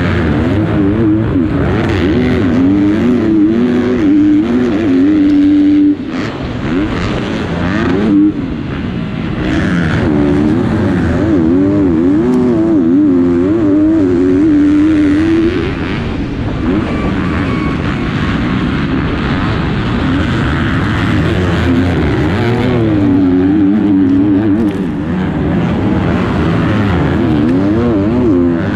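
A 250cc four-stroke motocross bike engine at full race pace, its pitch rising and falling constantly as the rider works the throttle and shifts through corners and jumps, with a brief sudden drop about six seconds in.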